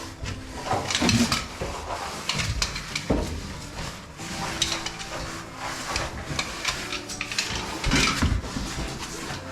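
Metal vertical-caving gear clinking and rattling in irregular bursts, with scraping and rustling of rope and pack against the rock during a rope descent; the loudest clatters come about a second in and again near the end.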